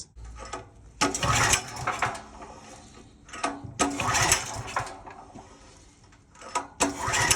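Small portable generator engine being cranked over three times, each attempt a short burst of about half a second, without firing. It is on choke with the fuel shut off: a no-start, with the carburetor not getting fuel.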